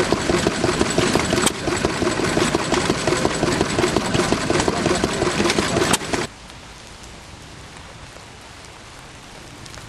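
Amanco single-cylinder hopper-cooled stationary engine running with a steady, rhythmic beat. It cuts off suddenly about six seconds in, leaving a quieter, steady hiss.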